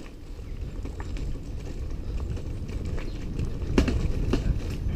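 Bicycle rolling fast down a gravel dirt road: tyres crunching over loose stones under a low wind rumble that grows louder as it picks up speed. A few sharp knocks and rattles from the bike a little under four seconds in, which the rider takes for a hit to the front fork.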